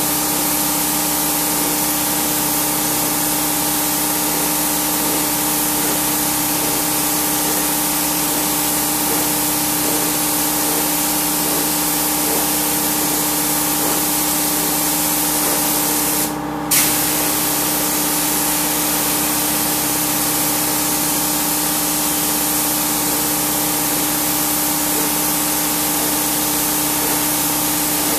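Compressed-air spray gun hissing steadily as it sprays a coating onto a stone-chip floor slab, over a steady machine hum. A little past the middle the spray cuts out for about half a second, then starts again with a short burst.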